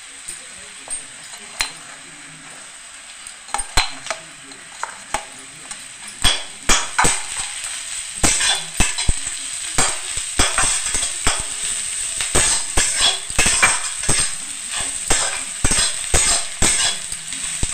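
Sliced onions sizzling in hot oil in a metal kadai, stirred with a spatula that scrapes and knocks against the pan. The knocks are few at first and come often from about six seconds in.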